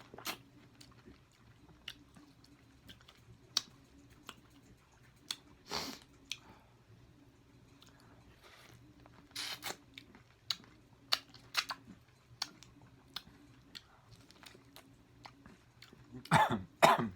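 Close-miked eating: a person biting and chewing sauce-coated food, with scattered wet mouth clicks and smacks and a louder run of bites and chewing near the end. A faint steady low hum lies underneath.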